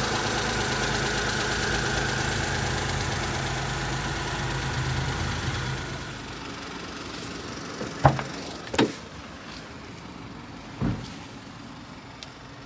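1999 Suzuki Carry kei truck's small three-cylinder engine idling steadily. About six seconds in it becomes quieter and more muffled. Three sharp clunks follow over the next few seconds.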